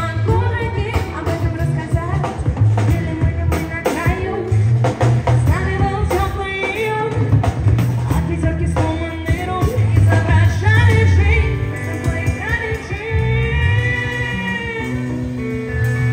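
Live rock band playing: a singer over electric guitars and a drum kit, with a steady heavy low beat.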